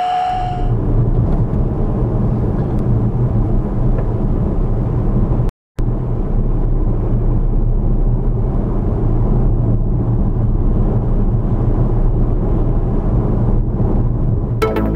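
Steady low road and engine rumble inside a car driving at around 30 mph, as picked up by a dashcam. An electric air pump's whine cuts off at the very start, and the sound drops out completely for a split second about five and a half seconds in.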